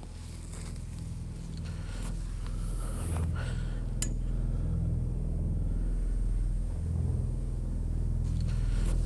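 Deep, low rumbling drone that swells steadily louder, with a few faint clicks and rustles over it.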